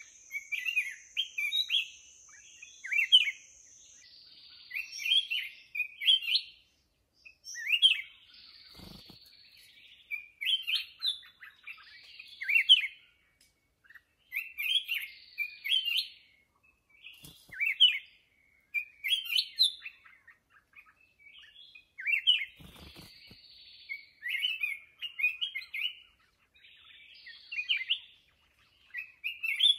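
Black-crested bulbul singing: short phrases of quick, liquid whistled notes, repeated every second or two. A steady high tone runs under it for the first few seconds, then stops.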